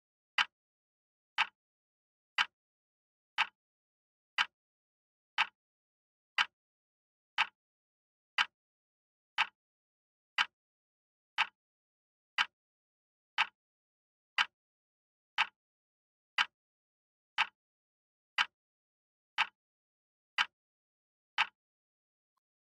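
Countdown-timer clock-tick sound effect: short sharp ticks, one a second, about twenty in a row, stopping about a second before the end.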